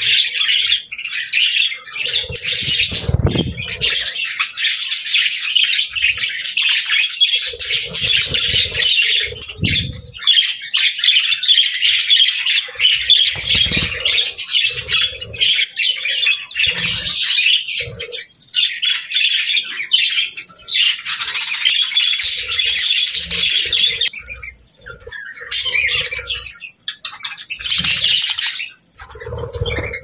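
A flock of budgerigars chattering and warbling continuously, with wings fluttering now and then. The chatter thins out for the last few seconds.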